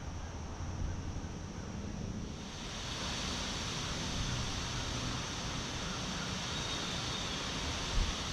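Wind blowing through trees, the rustle of leaves swelling about two and a half seconds in and holding steady, over a low rumble of wind on the microphone.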